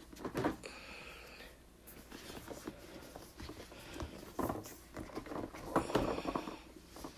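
Tight cardboard board-game box lid being worked loose by hand: cardboard scraping and rubbing with scattered taps and knocks, a few louder knocks in the second half.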